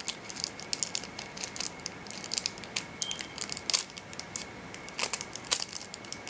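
Foil Yu-Gi-Oh! booster pack wrapper crinkling as hands handle it and pull at its sealed top edge: a rapid string of small sharp crackles, with a few louder ones about four and five seconds in.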